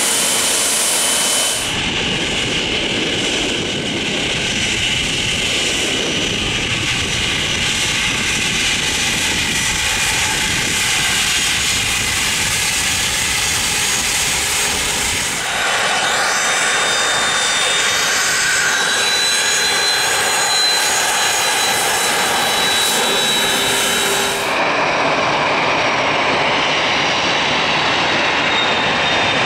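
Business-jet turbofan engines across several cut-together clips. A Dassault Falcon 2000 taxis with a steady engine rush. Then a Cessna CitationJet CJ2 passes with a thin high whine over the rush. Near the end a Falcon 2000LX starts its takeoff run under power.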